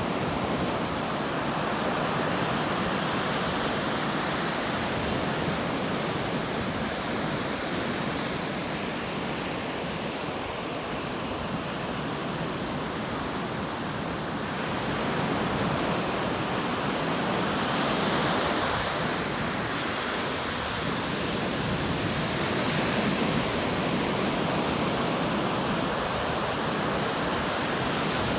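Ocean surf: a continuous wash of breaking waves, swelling gently a few times.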